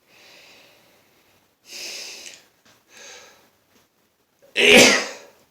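A man's several breathy intakes of air, building to one loud, sudden sneeze about four and a half seconds in, part of a fit of allergy sneezing.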